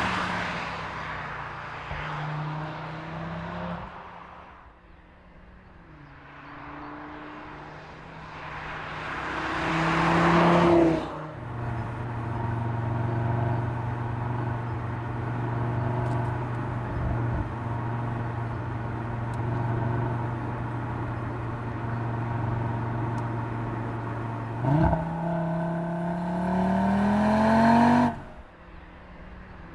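Audi RS 3's turbocharged 2.5-litre five-cylinder engine driving: two swelling pass-bys, then a long steady drone at constant revs, then accelerating with the pitch rising before the sound cuts off near the end.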